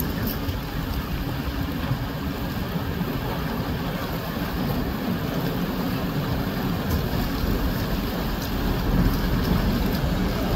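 Tugboat pushing through broken harbour ice: a steady low rumble mixed with the grinding and crunching of ice floes against the steel hull, growing a little louder near the end.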